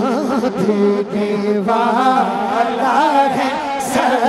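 A man chanting a naat in long, wavering melismatic phrases, with a steady held low tone underneath.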